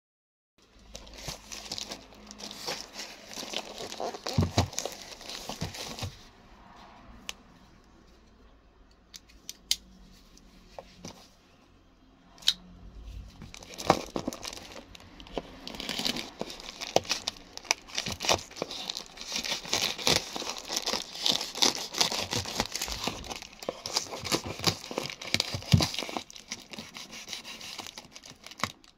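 Black plastic wrapping on a parcel being handled and cut open with a knife: crinkling and tearing plastic. It goes in two spells, with a quieter gap of a few clicks between them, and is nearly continuous for the second half.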